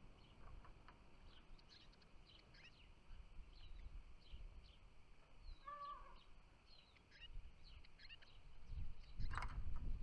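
Small songbirds chirping, many short high calls scattered throughout, with one lower, fuller call about six seconds in. Near the end a low rumble rises and a single sharp click sounds.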